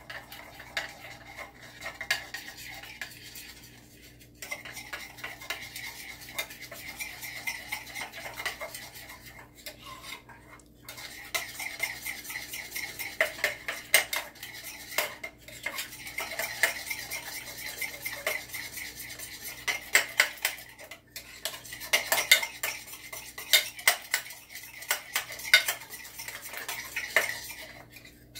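A metal utensil beating egg-and-almond-flour batter in a dish, rapid clinking and scraping against the sides, with a few brief pauses.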